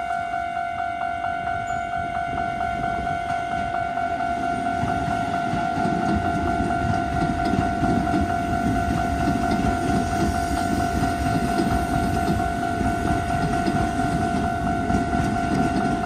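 Japanese level-crossing alarm ringing in an even, repeating two-tone ding while the barriers are down. From about four seconds in, an electric commuter train's rumble and wheel-on-rail noise grow louder as the train runs through the crossing.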